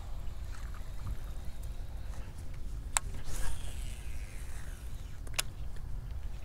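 A cast with a baitcasting reel: a sharp click, then the spool whirring as line pays out, its pitch falling as it slows, and a second sharp click about two seconds later. A steady low rumble of water and handling noise from the kayak underneath.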